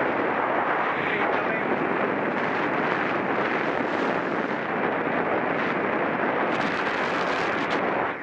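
Steady rush of wind buffeting the microphone at cycling speed, with no distinct events.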